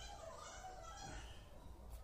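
Faint, distant children's voices over a low steady hum.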